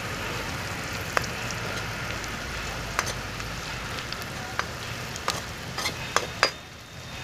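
Sliced onions sizzling in hot oil in a metal pan while a spatula stirs them, clicking and scraping against the pan about seven times, the sharpest knocks near the end.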